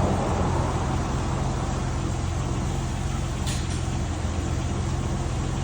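1991 BMW 325i's straight-six engine idling steadily, with a brief high hiss about three and a half seconds in.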